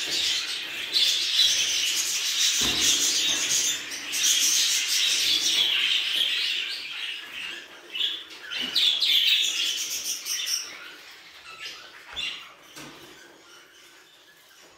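Budgerigars chattering and warbling, a dense stream of many chirps that thins out and grows fainter over the last few seconds.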